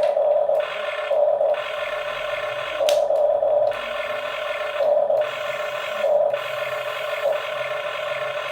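Small electric gear motors of a remote-control toy construction vehicle whirring in short bursts, about six times, as its functions are worked by the remote.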